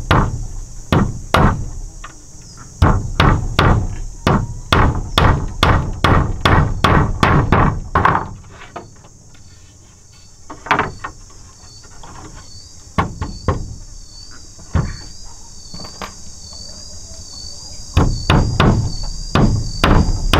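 Hammer driving nails through round wooden poles into a wooden rail: runs of sharp strikes, about two a second, with a quieter pause in the middle. A steady high chorus of insects runs underneath.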